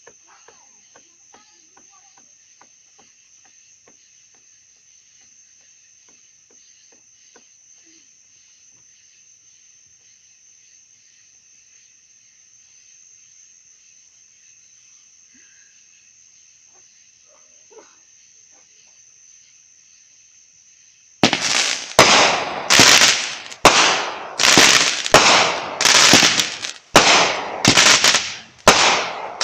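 Crickets chirping steadily, then about 21 s in a multi-shot aerial fireworks cake starts firing: loud shots in quick succession, about one and a half a second, each whooshing up and fading.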